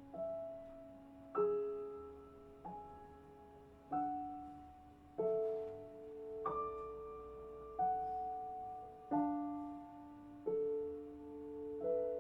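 Slow solo piano passage in recorded music played over loudspeakers: a note or chord struck about every 1.3 seconds, each left to ring and fade before the next.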